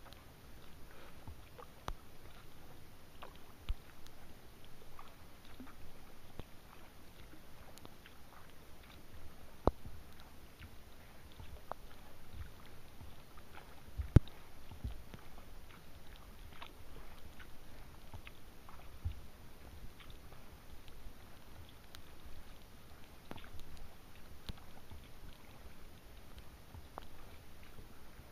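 A kayak being paddled on calm water: soft paddle splashes and drips over a low rumble, with scattered small ticks and one sharp knock about halfway through.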